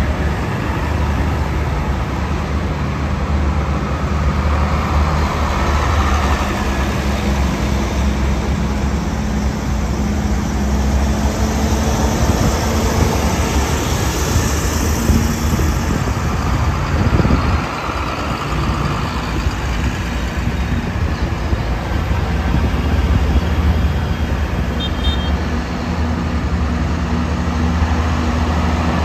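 Large diesel farm tractors running and driving slowly past one after another, a steady low engine note that swells as each one passes close.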